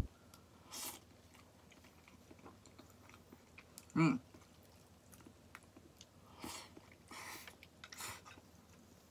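A person chewing quietly on a mouthful of pan-fried noodle okonomiyaki, with a short murmur about four seconds in and a few faint mouth noises near the end.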